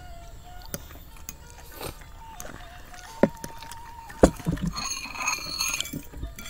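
Metal forks and spoons clinking and scraping against ceramic noodle bowls, with two sharp clinks standing out about three and four seconds in. Faint background music runs underneath.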